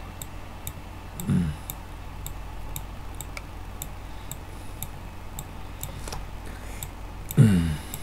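Light, regular clicking, about three clicks a second, from the computer as the chart is scrolled. A man's short voiced sound comes about a second in and again near the end, over a faint steady hum.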